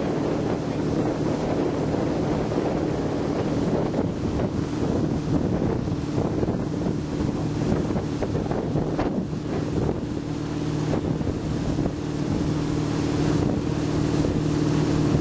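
Tow boat's engine running steadily under strong wind buffeting the microphone, with the wake churning behind. The engine's drone grows stronger about three quarters of the way in.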